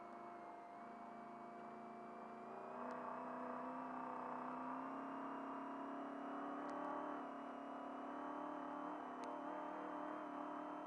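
Trophy truck's engine heard from inside the cab, pulling harder about three seconds in and running strongly as the truck speeds up, with a thin whine climbing slowly in pitch.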